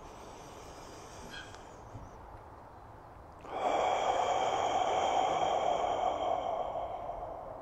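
A long, forceful exhale through the mouth, starting suddenly about three and a half seconds in and lasting about four seconds before tailing off. It is a deliberate full out-breath in a breathing exercise, pushing all the air out of the lungs.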